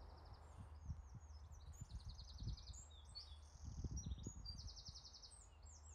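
Faint birdsong: several small birds chirping, with quick trills of rapidly repeated notes, over a low rumble.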